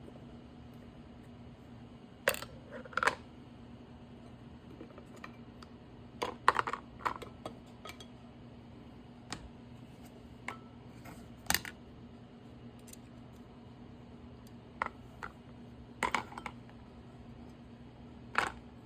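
Scattered sharp clicks, taps and light clinks of items and packaging being handled and unpacked, coming in short clusters, over a steady low hum.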